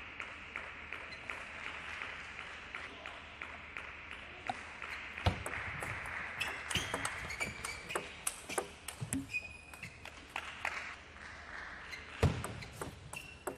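Table tennis rally: the celluloid ball clicking off rackets and table in quick succession, point after point, with a couple of louder thuds about five seconds in and near the end.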